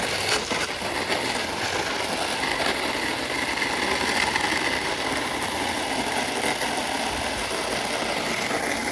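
Water from a hose running steadily into a plastic kiddie pool as it fills, an even rushing hiss.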